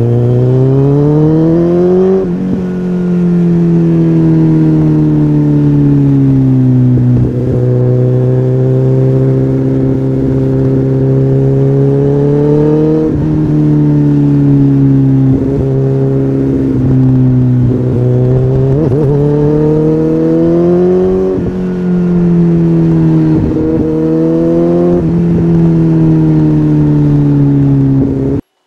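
Kawasaki ZX-14R motorcycle's inline-four engine under way. Its pitch climbs in the first two seconds, drops sharply at a gear change, then rises and falls repeatedly with the throttle and shifts. The sound cuts off abruptly near the end.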